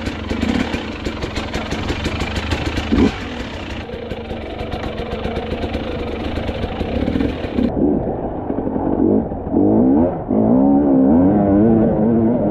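Enduro motorcycle engine revving up and down while riding over rough ground, with clattering. The engine pitch rises and falls quickly in the last few seconds.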